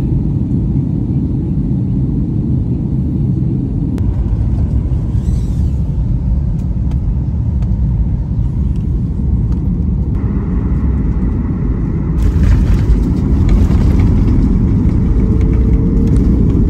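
Steady low rumble of a jet airliner heard from inside the cabin. About twelve seconds in it grows louder and harsher as the plane rolls along the runway after landing.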